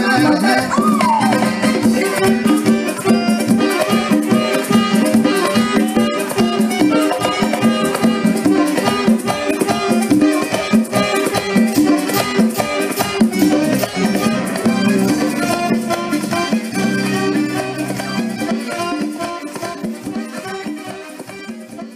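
Live Latin band music with congas, saxophone and keyboard over a steady percussion rhythm, gradually fading out toward the end.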